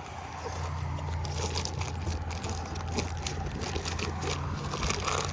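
Irregular scraping and crackling of an asphalt shingle being handled on the roof, over a steady low hum that starts about half a second in.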